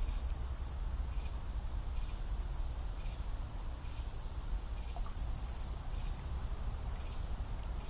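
Creekside ambience: a steady low rumble under a high insect chorus that pulses on and off about once a second, with a thin steady high whine running through it.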